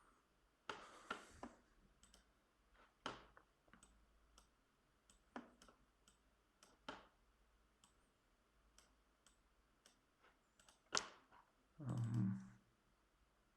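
Faint, irregular clicks from operating a computer, about a dozen spread unevenly, with a louder dull thump near the end.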